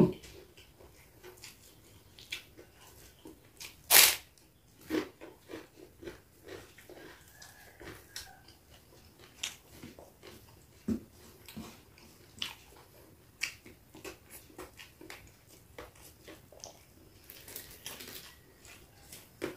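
Close eating sounds: chewing, lip-smacking and crunching as a meal is eaten by hand, in irregular short smacks and clicks. One louder, sharp noise comes about four seconds in.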